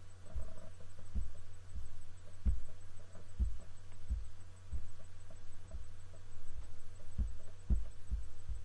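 Dull low thumps, about one or two a second at uneven spacing, over a steady low hum.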